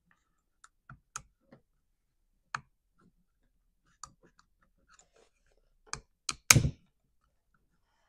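Scattered plastic clicks and taps as a Stihl MS362 chainsaw's inner air filter is fitted and pressed into place on its housing, with a few louder knocks about six seconds in.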